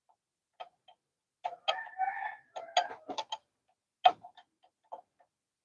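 A 3/4-inch wrench working the steel fittings of a DT12 transmission's range-selection air lines: a series of short, irregular metallic clicks and clinks, with a brief squeaking scrape about two seconds in.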